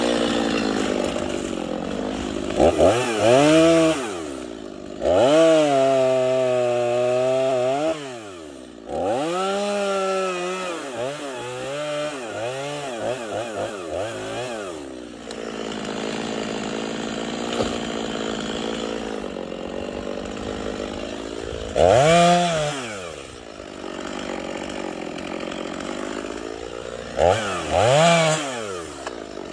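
Stihl two-stroke chainsaw idling and revved up in several bursts. One burst about five seconds in is held high for nearly three seconds, and the engine drops back to idle between bursts.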